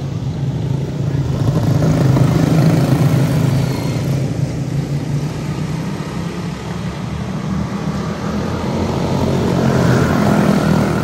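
Quarter midget race cars' small single-cylinder engines running at racing speed, the sound swelling about two seconds in and again near the end.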